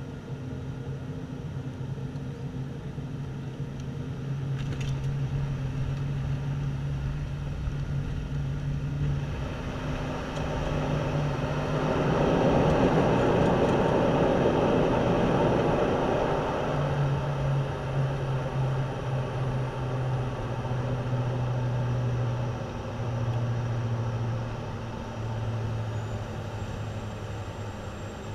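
Turboprop airliner's engine and propeller heard from the cabin beside the nacelle during landing: a steady low propeller drone, then a loud rushing roar for about four seconds around the middle as the aircraft is on the runway slowing down, typical of propellers put into reverse pitch after touchdown. Afterwards the propeller drone comes back, rising and falling in level as the plane rolls out.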